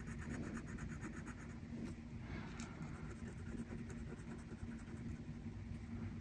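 Black felt-tip marker scribbling on paper in quick back-and-forth strokes as a letter is filled in solid, fastest in the first second.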